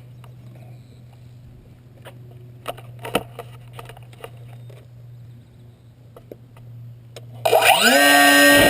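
Faint clicks and taps over a low steady hum, then near the end the RQ-11 model plane's electric motor spins up with a rising whine and settles into a loud, steady high-pitched drone.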